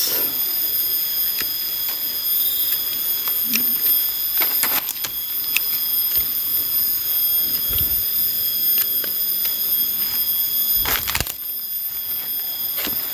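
Steady, high-pitched insect chorus, several shrill tones held at once, with a few sharp clicks over it.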